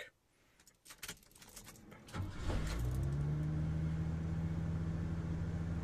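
Key clicks in the ignition, then the Ford F-150's 4.9-litre straight-six cranks briefly and starts about two seconds in, settling into a steady idle.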